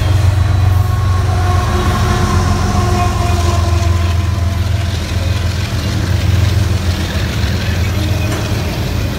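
Double-stack intermodal freight train rolling past close by, with a mid-train CSX diesel locomotive going by about four seconds in. The locomotive's engine and the wheels on the rails make a loud, steady, deep rumble, with faint held tones in the first few seconds.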